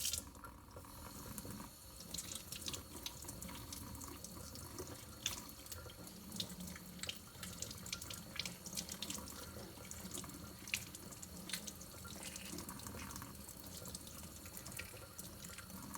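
Kitchen tap running into a sink, with scattered small clicks and splashes as a hard-boiled egg is peeled under the warm stream.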